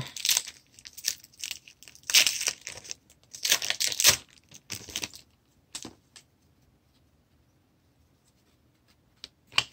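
A hockey card pack wrapper being torn open, in several ripping, crinkling bursts over the first five seconds, followed by a few faint clicks near the end.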